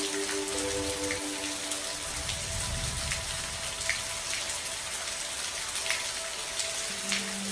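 Steady rain falling, a continuous hiss with individual drops ticking sharply now and then. A soft low rumble swells briefly about two to three seconds in.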